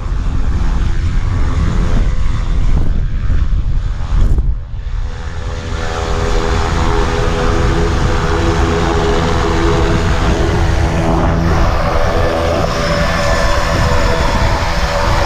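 Wind buffeting the microphone at first. Then, from about five seconds in, the steady drone of a propeller aircraft's engine running, a set of steady tones that gets stronger.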